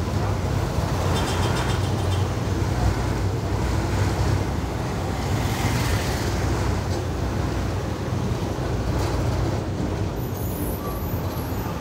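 Steady low rumble of a moving KSRTC bus: its diesel engine running with road and tyre noise, unchanging throughout.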